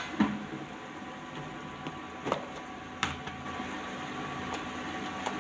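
Philips induction cooktop running: a steady electrical hum with a faint whine, broken by a few faint clicks.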